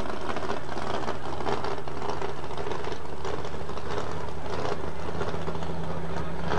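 Pulling tractor's diesel engine running steadily, its stack smoking heavily. The engine note rises slightly about two-thirds of the way through.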